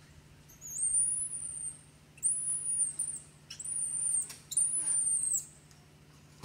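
Baby long-tailed macaque crying: four very high, thin, drawn-out cries of about a second each in quick succession, the distress cries of an infant pushed away from its mother.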